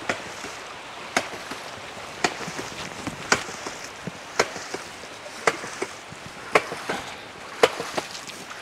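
Hydraulic ram pump knocking in a steady rhythm, one sharp clack about every second. Each clack is its waste valve slamming shut as the pump cycles, the sign that it is working.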